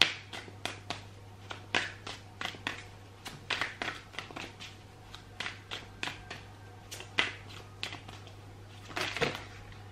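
Deck of tarot cards shuffled by hand: an irregular run of soft card slaps and riffles, one or two a second, over a steady low hum.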